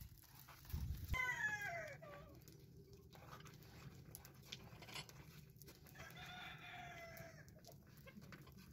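Rooster crowing twice: a call falling in pitch about a second in, and a longer, steadier crow about six seconds in.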